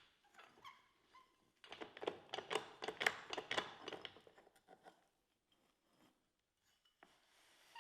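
Faint handling noise: a dense run of small crinkles and clicks lasting about three seconds, starting a little under two seconds in, with a single click at the very start.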